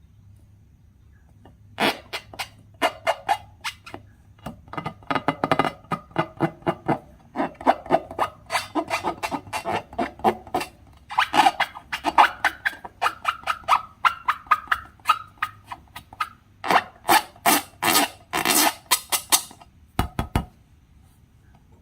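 Slime being squeezed and pressed by hand, giving rapid wet clicks and small popping sounds in irregular bursts that stop briefly about a second before the end.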